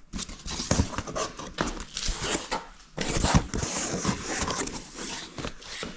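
Cardboard box and packaging being handled, an irregular rustling and crinkling with a short pause about three seconds in.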